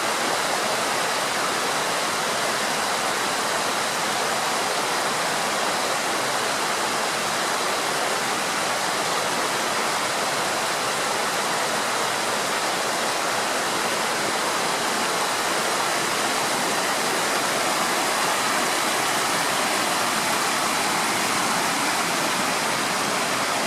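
Fast-flowing river water pouring over a weir, a steady, loud rushing.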